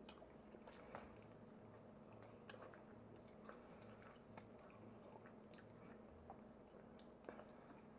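Faint chewing and eating sounds with scattered soft clicks, over a low steady hum.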